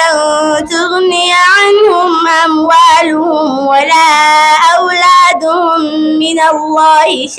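A girl reciting the Qur'an in melodic chant (tajwid), drawing out long held notes that bend up and down, with short pauses for breath.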